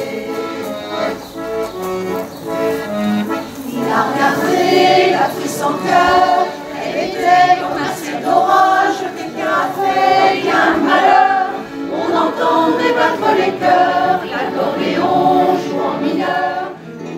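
A group of singers, a choir, singing a French song together, accompanied by an accordion.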